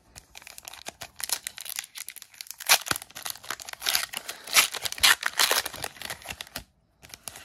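Foil Pokémon booster pack wrapper being torn open and crinkled by hand: a dense run of crackling and tearing that cuts off suddenly about a second before the end, followed by one short crinkle.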